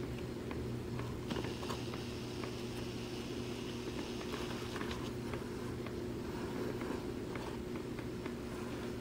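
Aquarium filter running: a steady low motor hum with a watery hiss, and a few faint ticks. A higher hiss comes in about a second in and fades out about five seconds in.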